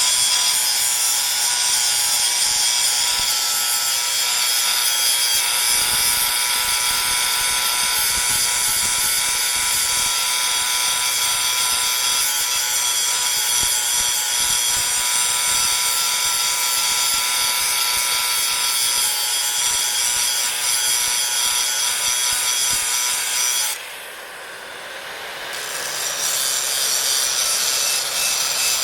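Power grinder running and grinding metal: a steady motor whine under a harsh, high grinding rasp. About 24 s in, the grinding noise drops away while the motor keeps whining, then builds back up over a couple of seconds as the disc returns to the work.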